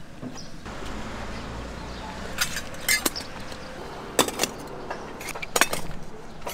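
Kitchen clatter: a few sharp clinks and knocks of bowls and utensils, mostly in the second half, over steady background noise.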